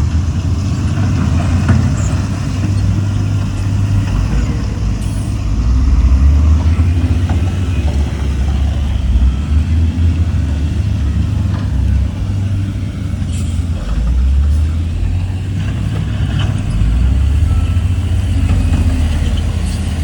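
Heavy diesel engines of earthmoving machinery running, a deep low rumble that swells and eases every few seconds.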